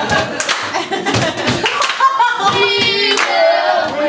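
Hands clapping in a steady rhythm, about three claps a second. About two seconds in, a group of voices joins in singing long held notes together.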